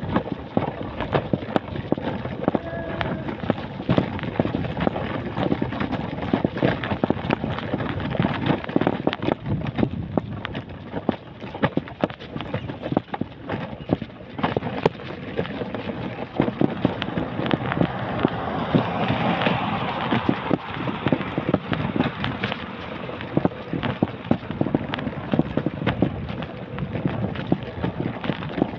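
Footsteps and the clatter of the handheld or carried camera as someone walks along a paved sidewalk, a steady run of small knocks and taps. About two-thirds of the way through, a broader rushing swell rises and fades.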